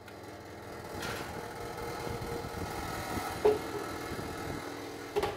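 Oven fan humming steadily through the open oven door as a metal baking tray is put in, with a sharp knock of the tray against the rack about three and a half seconds in and another knock near the end.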